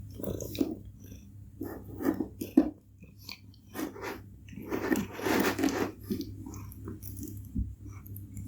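A domestic cat purring close up: a steady low rumble, with irregular louder bursts coming and going over it.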